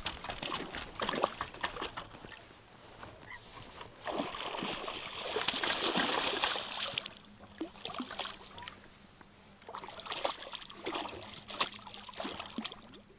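Water splashing and sloshing as a hooked pike is drawn to the side of a boat, with scattered clicks and knocks; the splashing is loudest around the middle.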